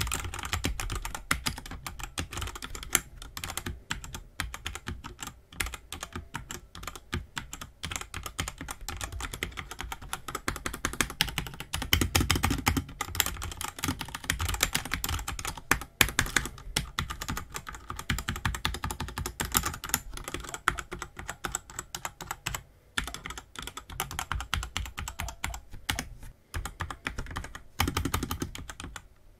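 Fast continuous typing on a Lifesum 84-key tenkeyless mechanical keyboard with red linear switches: a dense run of key clacks, broken by a couple of short pauses in the second half.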